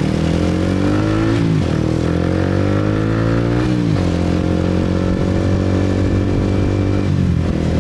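Motorcycle engine accelerating away from a standstill, its pitch climbing and dropping back twice, about one and a half and four seconds in, as it shifts up, then running steadily at cruising speed.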